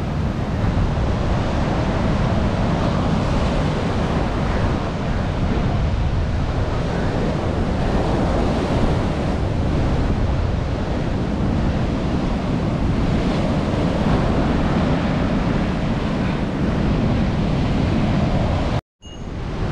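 Rough Arabian Sea surf breaking and washing up a sandy beach in a steady roar, with wind rumbling on the microphone. The sound cuts out for a moment near the end.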